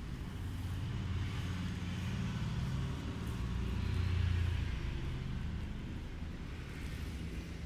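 A motor vehicle's engine rumbling as it passes, growing louder to a peak about halfway through and then fading.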